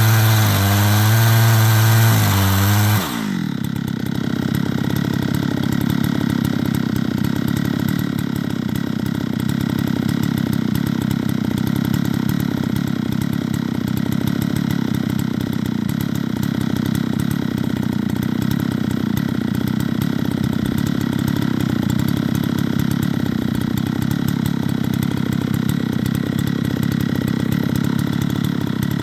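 Chainsaw on an Alaskan chainsaw mill running at high revs, then dropping suddenly to idle about three seconds in and idling steadily after that.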